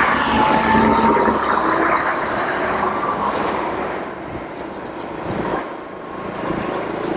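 Electric scooter's motor whine rising in pitch as it picks up speed, over steady wind and road noise on the microphone. The sound eases off after about four seconds as the scooter settles its speed.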